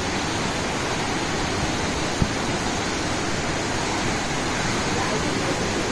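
Heavy rain pouring down in a steady, dense hiss. A brief low thump about two seconds in.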